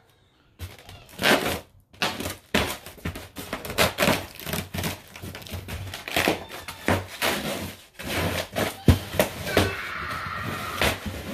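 Packaging being opened and handled: cardboard and plastic rustling and crinkling, with scattered knocks and thunks as the contents of a drain-snake box are moved about, and a short squeak near the end.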